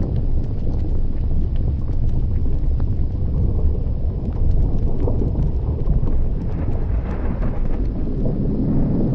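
Deep, steady rumble of an erupting volcanic vent, with many small crackles and pops over it and a stretch of hissing from about six and a half seconds in.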